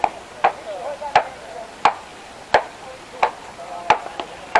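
A steady series of sharp knocks, about seven, spaced roughly 0.7 s apart, with a softer extra knock shortly before the last one.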